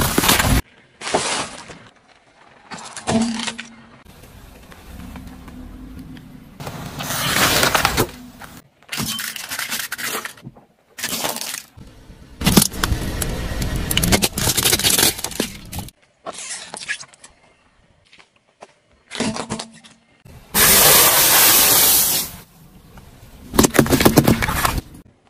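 A run of short cut-together clips of objects cracking and crunching as they are crushed under a car's tyres, with brief snatches of car sound between the crushes.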